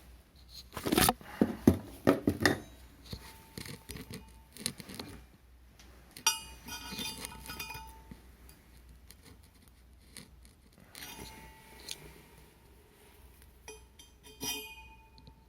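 Welded steel test pieces being handled: a quick run of loud knocks, then several metallic clinks that ring briefly.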